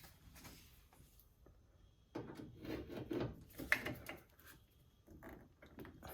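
Manual pop rivet gun working a 3/16 inch rivet into the hood latch mount: a quiet start, then about two seconds in a run of metallic clicks and scraping with one sharper click, as the gun's handle is squeezed to pull the rivet's mandrel.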